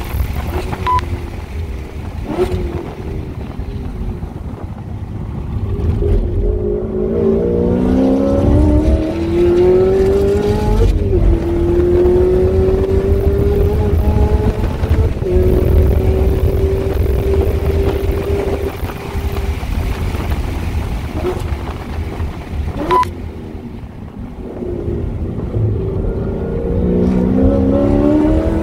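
Supercharged 6.2-litre V8 of a Chevrolet Camaro ZL1 1LE, heard from inside the cabin at speed on a race track. The engine note climbs under hard acceleration and breaks once about eleven seconds in, at a gear change. It holds high, falls away off the throttle around twenty seconds, and climbs again near the end. Heavy wind rumble runs underneath throughout.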